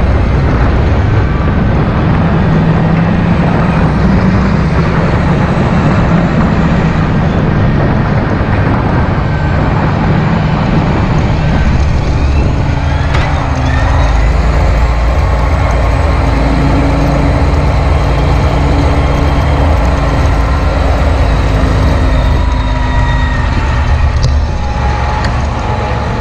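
John Deere 8430 tractor's six-cylinder diesel engine running steadily while the tractor drives on the road. It quietens in the last couple of seconds as the tractor slows.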